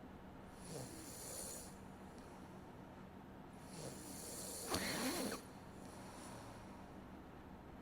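A sleeping person snoring softly into a streaming microphone, with airy breaths about every two to three seconds. The loudest, rougher snore comes about five seconds in.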